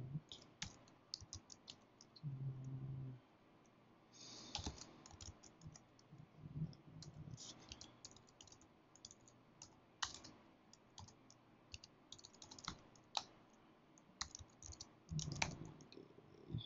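Computer keyboard typing: irregular runs of faint key clicks with short pauses between them.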